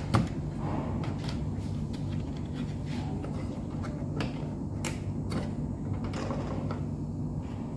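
Plastic drain-pump filter cap of a front-load washing machine being twisted anticlockwise and pulled out by hand: scattered clicks, knocks and creaks of plastic parts.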